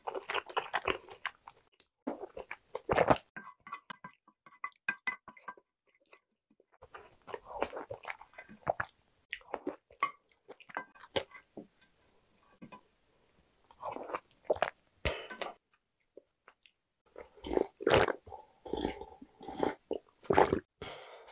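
Close-miked eating sounds: a wooden spoon scraping and tapping a ceramic dish, and wet chewing of spicy tteokbokki sauce, in short bursts with quiet pauses between. Near the end come sips from a bowl.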